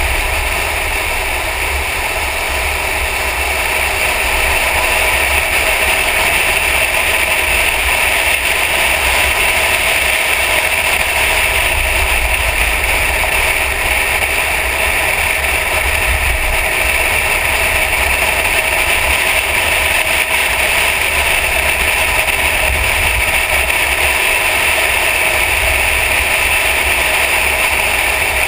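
Mercedes-Benz E63 AMG driving at speed, heard as a steady low rumble with wind and road noise and no clear rise or fall in engine revs.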